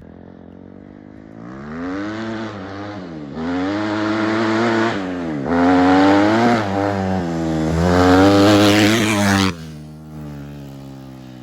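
Kawasaki KX250F four-stroke single-cylinder motocross engine with an FMF aftermarket exhaust, revving up in three pulls that grow louder, its pitch dropping sharply between them. The throttle is shut off abruptly about nine and a half seconds in, and the engine falls back to a low running sound that fades away.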